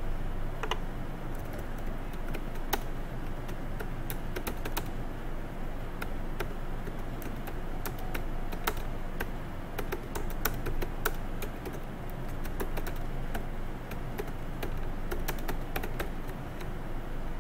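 Typing on a computer keyboard: a sentence keyed in with irregular, quick key clicks over a steady low hum.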